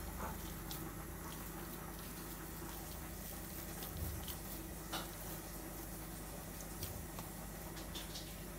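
Soft handling of bread dough in a glass bowl: a few faint, scattered taps and clicks over a steady low hum.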